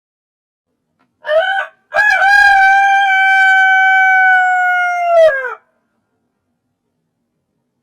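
Rooster crowing, slowed to a quarter of its speed: a short note about a second in, then one long held note of about three and a half seconds that drops in pitch as it ends.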